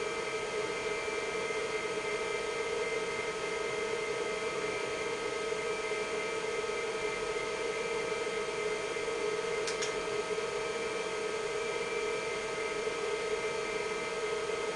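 Steady whir and hum of a running IBM 5160 PC XT, its power-supply fan and spinning MFM hard drive, with one short click about ten seconds in.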